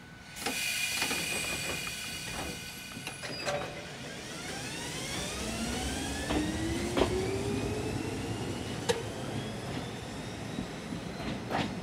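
Ichibata Electric Railway 5000 series electric train pulling away: a whine starts suddenly about half a second in, then several whines climb steadily in pitch as the train gathers speed. Sharp clacks come every second or two as the wheels cross rail joints.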